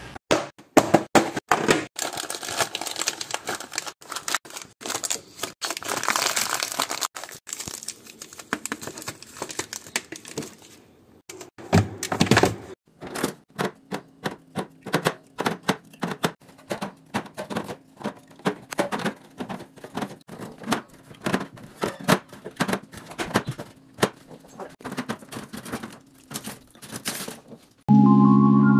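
Fast, irregular clicking, knocking and crinkling: food containers, lids and packaging handled, opened and set down while a fridge is stocked. Plinking marimba-like music starts near the end.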